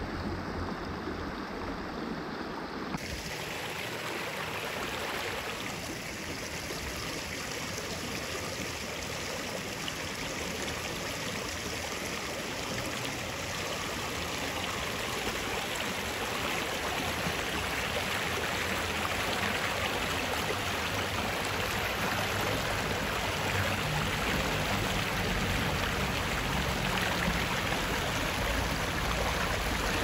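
Rushing creek water running high after heavy rain: a steady, even rush that turns brighter about three seconds in.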